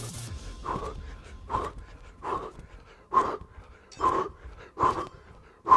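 A man's hard, voiced exhalations during jumping jacks, one short breath about every 0.8 seconds in time with the jumps, getting louder toward the end.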